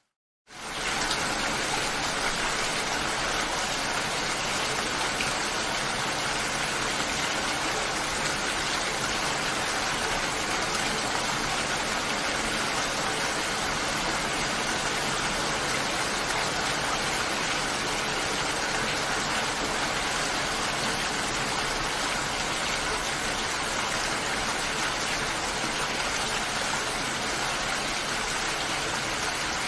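Steady rain, a dense even hiss with no rhythm or pitch. It starts abruptly about half a second in, after a brief silence.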